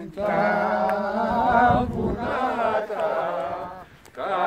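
Unaccompanied men's voices singing a slow Greek folk song in long, drawn-out notes, with a short breath pause about four seconds in.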